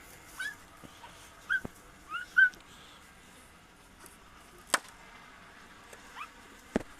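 An animal giving several short, high whimpering cries, each rising and then dropping in pitch, the loudest about two and a half seconds in. Two sharp knocks come near the end.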